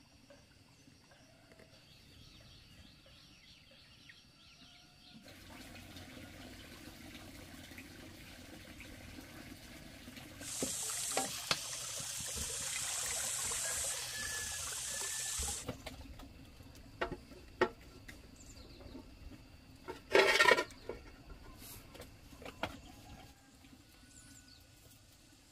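Water running or pouring, loudest for about five seconds in the middle and stopping abruptly, with scattered knocks afterwards and a short, loud noise about twenty seconds in.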